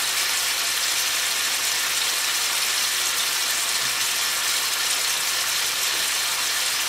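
Cubes of pork fillet sizzling steadily in hot rapeseed oil in a frying pan, searing on their second side.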